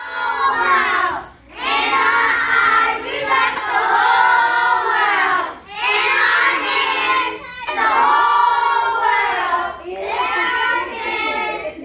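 A group of children singing together in phrases of a couple of seconds, with short breaks between phrases.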